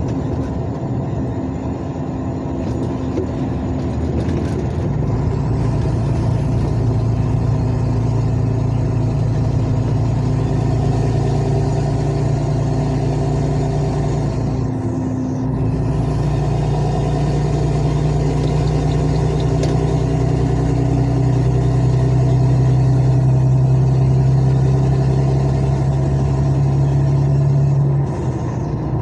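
Heavy truck's diesel engine running under load, heard from the cab with a steady low hum. The engine note breaks off briefly about halfway through and then comes back, and the level drops near the end.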